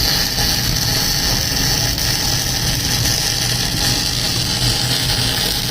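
MIG welding arc running steadily on SG (ductile) cast iron: an even, sizzling hiss over a low hum.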